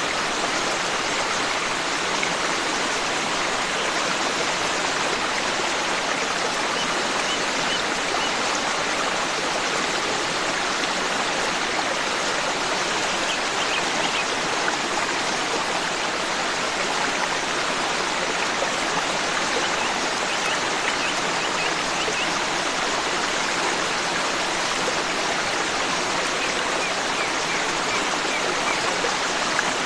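A forest stream runs and splashes steadily. Faint short runs of high bird chirps come through four times.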